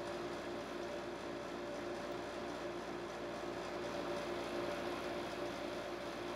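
Steady low hum with an even hiss: room tone.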